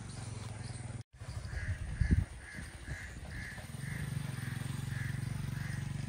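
A bird calls in an even series of about nine short calls, roughly two a second. Under it runs a low engine hum that grows louder about four seconds in, from a motorcycle passing.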